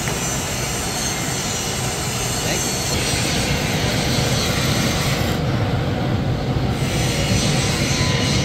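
Neycraft centrifugal spin casting machine whirling its arm and rebuilt steel flask receiver at speed in the bowl, a steady mechanical whir with a rubbing, squealing edge, as the molten metal is spun into the flask.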